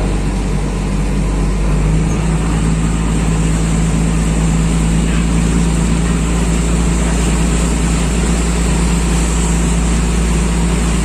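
Boat engine running steadily: a constant low hum over a rushing noise, the hum growing a little stronger about two seconds in.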